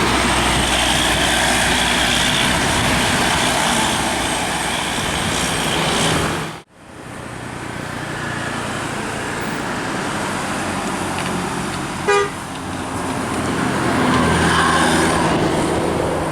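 Loud, steady road noise of a bus and traffic going by. The sound cuts out abruptly about six and a half seconds in and then returns. A brief horn toot comes about twelve seconds in.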